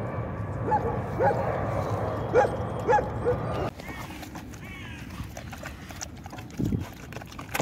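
Dogs giving short yelps and whines, about five in the first half, over a rustling background; it goes quieter about halfway through, with one lower call near the end.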